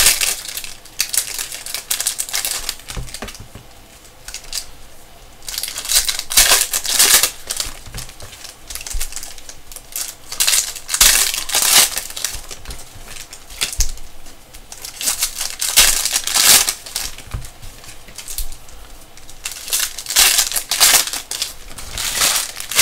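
Foil wrappers of Panini Prizm basketball card packs crinkling and tearing as they are ripped open and handled, in loud bursts every few seconds.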